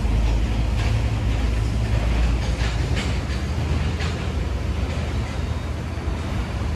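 A steady low rumble, with a few short rustles from a large plastic tarpaulin being handled and spread on concrete, about one, two and a half, three and four seconds in.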